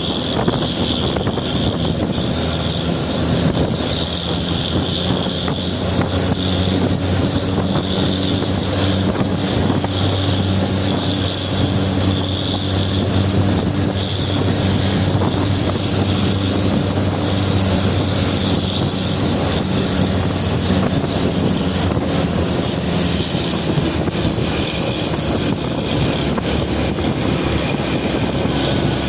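Bus engine running steadily with a low hum, with wind noise on the microphone.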